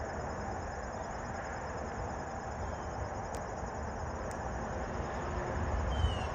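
Steady outdoor background noise with insects chirping in a fine, even trill, and a short rising chirp near the end.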